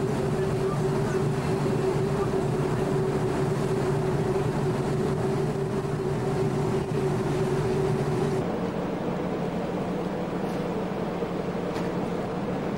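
Boat engine droning steadily under way, with the rush of the wake and wind. About two-thirds of the way in the sound changes abruptly: the hiss falls away and the drone settles a little higher in pitch.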